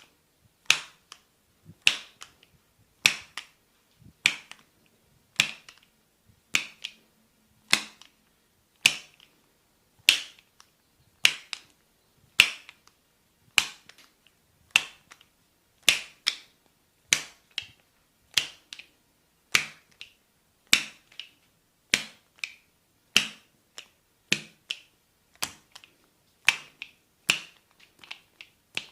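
Sharp snapping clicks from a barber's back massage, in a steady rhythm of about one loud snap a second with softer snaps between.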